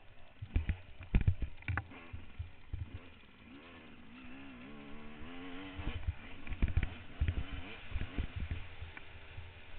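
Trail motorcycle engine running, its pitch rising and falling with the throttle, among frequent sharp thumps and knocks.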